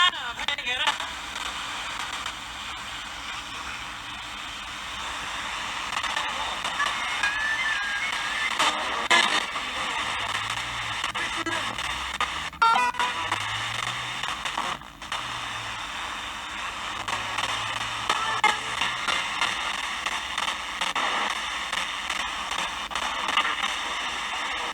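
Radio static: steady hiss from a radio receiver with no voice on the channel, broken by a few brief crackles and a short dropout about fifteen seconds in.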